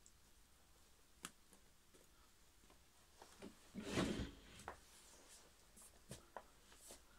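A single short cough about four seconds in, over faint room tone with a few light clicks and rubbing sounds.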